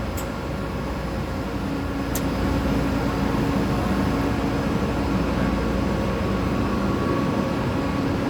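Industrial machine running with a steady mechanical hum, with a sharp click near the start and another about two seconds in. A held tone joins the hum a little later.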